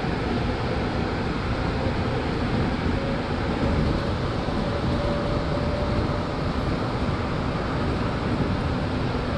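Inside a 1960s MR-63 rubber-tyred Montreal Metro car running through the tunnel: a steady rumble and rush from the tyres and running gear, with a faint whine that rises slightly in pitch over the first half.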